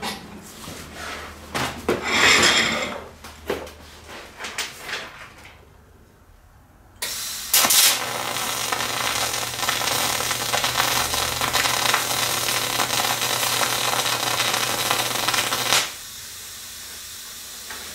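A few clicks and knocks, then about seven seconds in a MIG welding arc strikes with a pop. It runs for about eight seconds as a steady, even hiss with a low hum under it and little crackle, then stops. The welder is running 90/10 argon/CO2 gas at a wire feed of 375 and 31.9 volts, and he takes this smooth sound for spray transfer rather than short-circuit transfer.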